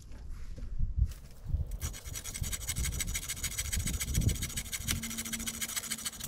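A steady, scratchy rasping with dull thumps underneath, from a fallen tree branch being worked at by hand; the rasping sets in about two seconds in.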